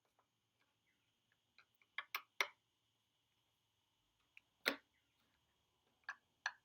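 Sharp clicks and knocks of small metal parts and tools being handled while the hoist's kill-switch housing is remounted. There are about six separate knocks: a quick cluster about two seconds in, the loudest near the middle, and two more near the end.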